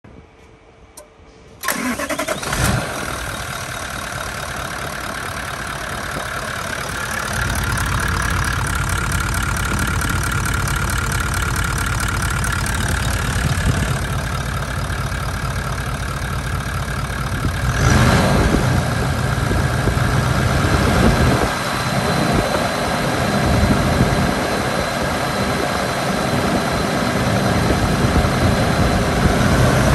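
Toyota LandCruiser ute's 4.5-litre 1VD-FTV V8 turbo diesel starting up about two seconds in and catching at once, then running steadily. The engine note rises and falls in the second half.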